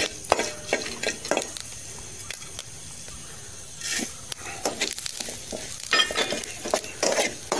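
Fenugreek and cumin seeds sizzling in a little oil in a steel kadai, with a steel ladle stirring and scraping against the pan in short clinks; a few louder clatters come about four and six seconds in as the cumin goes in and is stirred.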